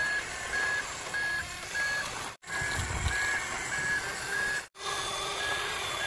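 Reversing beeper sounding a steady, even beep at one high pitch about every 0.6 seconds over a noisy background. The sound drops out briefly twice, and there is a low thump about three seconds in.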